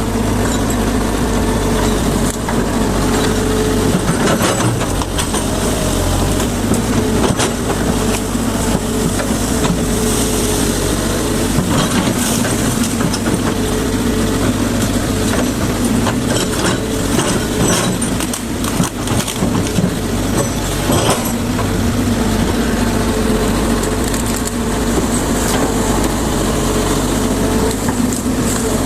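Hydraulic excavator's diesel engine running steadily under working load, with irregular cracks and knocks throughout as the machine tears through trees and brush.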